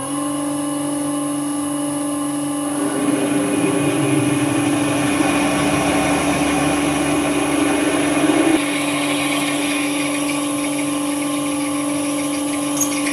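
Vintage Karger metal lathe running with a steady hum while a twist drill in the tailstock cuts into the spinning metal bar. From about three seconds in the cutting adds a rough grinding noise and a low rumble, which stop abruptly just past halfway, leaving the lathe running on its own.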